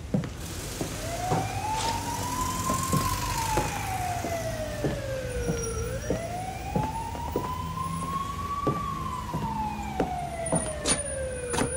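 A siren wailing, its pitch slowly rising and then falling, twice over, with scattered sharp clicks.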